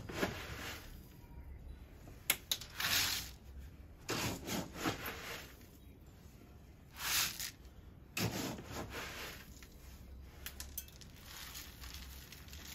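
Granular bonsai substrate, a 70-30 kanuma and kiryu mix, scooped and poured into a plastic basket colander: about five rushes of grains, each a second or so long, with scraping of the plastic scoop in between.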